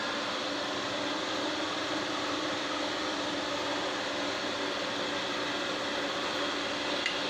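Steady background hiss with a faint, even hum and no distinct events, and one small tick near the end.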